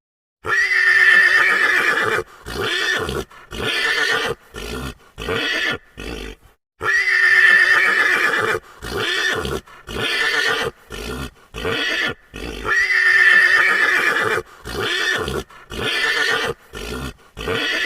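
Horse whinnying three times, each a long high call breaking into a run of shorter, fading pulses.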